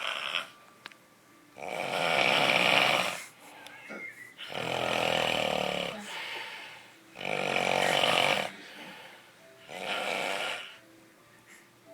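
A person snoring loudly: four long snores, one every two and a half seconds or so.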